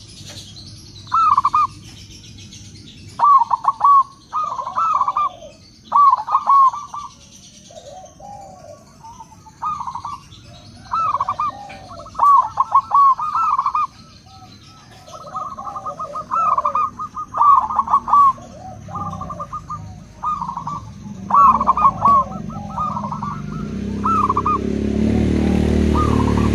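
Zebra doves (perkutut) cooing back and forth: repeated phrases of rolling, stuttering coos answered by softer, lower-pitched coos from a second bird. A low rumbling noise builds near the end.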